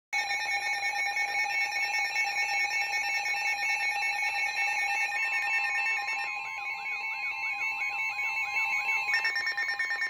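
Several NOAA weather alert radios, among them a Midland handheld, sounding their warning alarms at once: overlapping beeping and warbling electronic tones. A steady tone comes in about five seconds in, a repeating sweeping tone about a second later, and faster beeping near the end.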